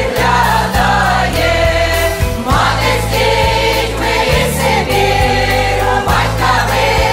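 Choir singing a Ukrainian Christmas carol (koliada) over instrumental accompaniment, with held bass notes that change every second or so.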